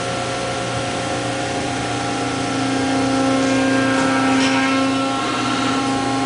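Hydraulic system of a 795-ton compression molding press running under load as the press builds pressure toward full tonnage: a steady machine whine with several held tones, and a hum that grows louder about two and a half seconds in.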